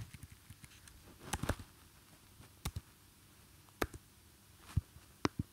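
Computer keyboard keys clicking, pressed one at a time with irregular gaps, about eight or nine strokes, while a number is typed into a field.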